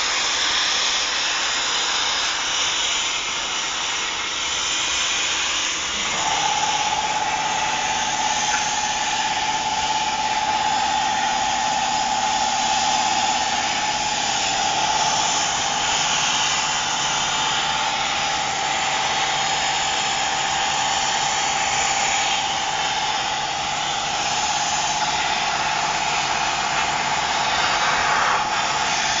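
Home-built CNC machine running: a steady hiss, joined about six seconds in by a steady tone that holds.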